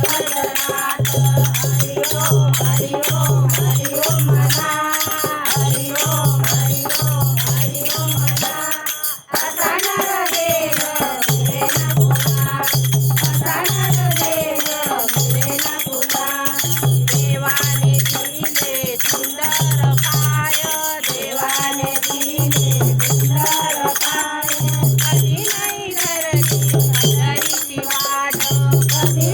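A group of women singing a Hindu devotional bhajan together, over a steady rhythmic low beat and jangling hand percussion, with a brief break about nine seconds in.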